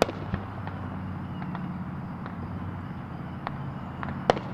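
Scattered sharp bangs of distant fireworks, the loudest right at the start and about four seconds in, over a steady low hum of vehicle traffic.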